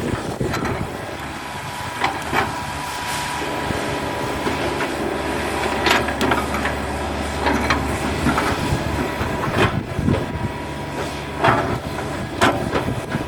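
Hitachi hydraulic excavator's diesel engine running steadily under working load, with about ten sharp knocks at irregular intervals as the machine works.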